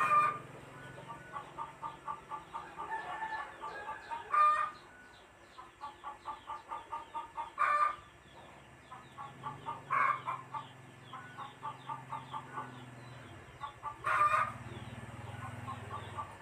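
A hen cackling: runs of quick clucks, each building to a loud squawk, five times, about every three seconds.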